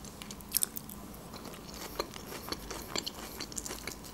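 A person chewing a mouthful of Caesar salad made with crisp iceberg lettuce, with soft, irregular crunches and small clicks.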